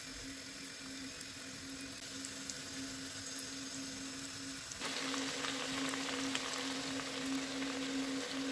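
Breaded potato balls deep-frying in hot vegetable oil in a pot: a steady crackling sizzle of bubbling oil, which gets louder and fuller about five seconds in. A steady low hum runs underneath.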